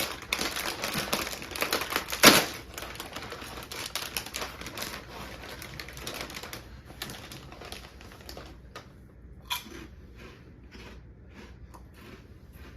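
Plastic snack bag crinkling and rustling, with one loud crackle about two seconds in, then grain-free puff snacks being crunched and chewed, the crunches growing sparser and quieter.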